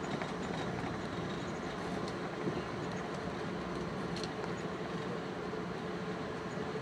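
Train running at speed, heard from inside the carriage: steady running noise with a faint low hum and a few light ticks.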